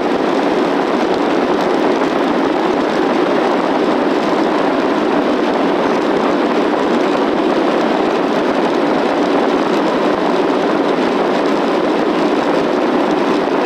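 Airliner jet engines at takeoff power, heard inside the passenger cabin as a loud, steady rush.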